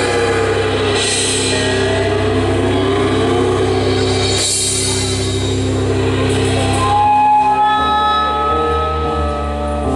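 Live instrumental rock band playing: electric guitar and bass over a drum kit, with a melody line that slides up and down and cymbal crashes about a second in and again around halfway. Near the end, new held high notes come in.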